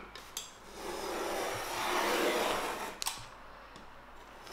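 Glued-down floor covering being torn up off the floor by hand: a drawn-out ripping that swells and fades over about two and a half seconds, ending in a sharp snap about three seconds in.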